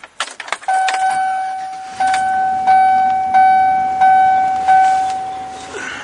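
Vehicle dashboard warning chime dinging over and over, about one and a half dings a second, each ding fading before the next. It follows a few clicks and rattles at the start and stops just before the end. A low hum comes in about two seconds in.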